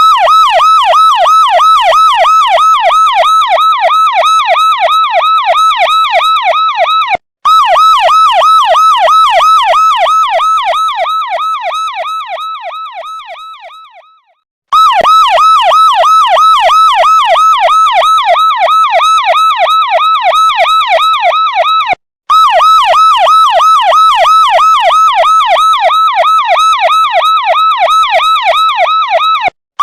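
Electronic police siren on a fast yelp, its pitch sweeping rapidly up and down several times a second. It cuts out for an instant a few times, and about a third of the way in it fades away to silence for a moment before starting again at full loudness.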